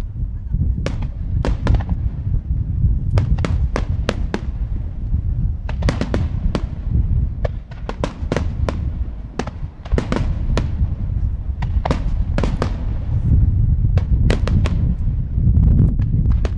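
Japanese star mine firework barrage: aerial shells bursting in rapid succession. Many sharp cracks come, often several a second, over a continuous deep rumble of booms.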